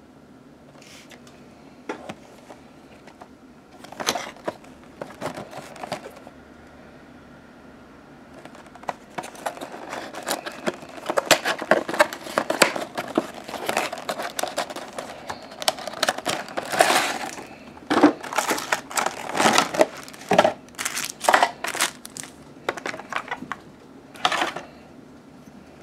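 Packaging being handled as a diecast model airliner is unboxed: plastic wrap crinkling and card rustling in irregular bursts, sparse at first and busier and louder from about a third of the way in.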